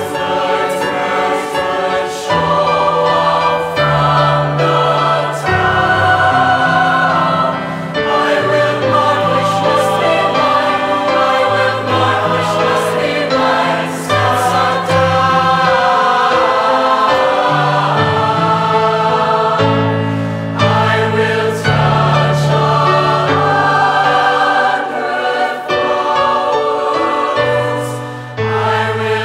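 Mixed youth choir singing a choral piece in several parts, with keyboard accompaniment.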